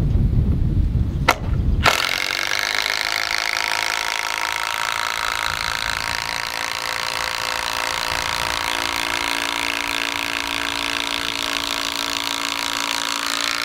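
DeWalt 12-volt compact impact driver hammering a 3/8 x 10-inch GRK structural screw into a 6x6 cedar beam, starting about two seconds in and running steadily under load as the screw sinks. Wind rumbles on the microphone before it starts.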